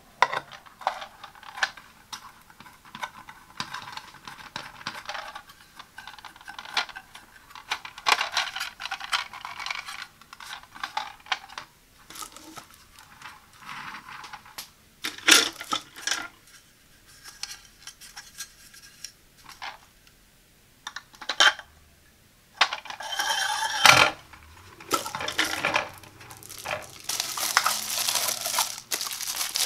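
A thin threaded metal rod is screwed into the plastic base of a coffee pod carousel, giving light metallic clicks and scraping with a few sharper taps midway. In the last several seconds, plastic wrapping crinkles as a wrapped plastic tube is handled.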